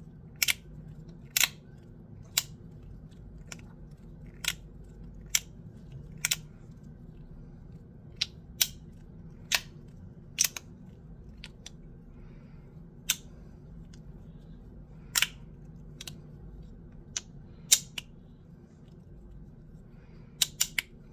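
Bean slider fidget toy being slid back and forth in the hand, its halves snapping into place with sharp clicks, about one a second at an uneven pace.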